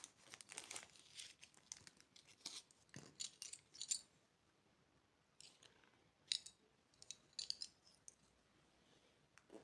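Faint, scattered clicks and rustles of candy packaging being handled and opened. They come in a cluster over the first few seconds, then after a short pause a few more sharp ticks follow.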